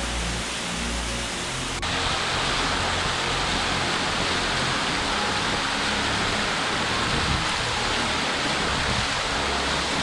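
Waterfall cascading down a rock face onto stones: a steady, dense rushing. It jumps louder and brighter about two seconds in, heard from right beneath the falling water.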